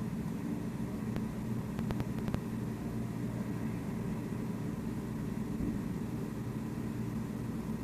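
An engine runs steadily with a low hum, with a few faint clicks between about one and two and a half seconds in.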